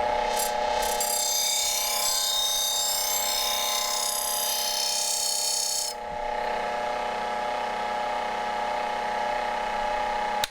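Paper polishing wheels spinning on a motor-driven arbor with a steady hum, while a knife edge is drawn across them for its final polish. For about the first six seconds the blade against the wheel adds a bright hiss, then only the motor hum remains until it cuts off at the end.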